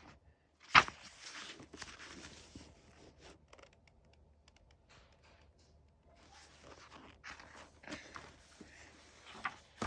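Paper picture book being handled and its page turned: a sharp knock about a second in, then paper rustling and scraping, with fainter rustles near the end.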